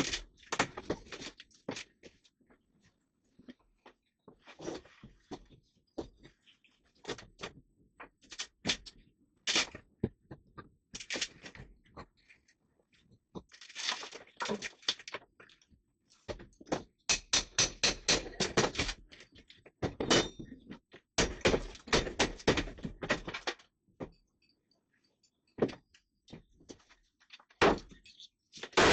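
Irregular knocking, cracking and clattering in clusters as a rotten plywood side wall on a wooden boat's flybridge is pried and broken out, with rapid runs of blows in the second half. The plywood gives way easily because it is rotten.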